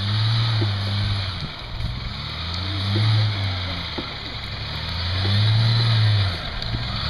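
A car engine revving up and easing off three times, about a second or so each, as a vehicle stuck in deep snow tries to drive free, with a steady hiss underneath.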